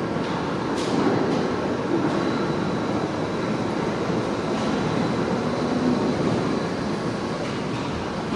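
R68 subway train pulling into an underground station, a steady rumble of wheels on rails and running gear, with a few faint clicks.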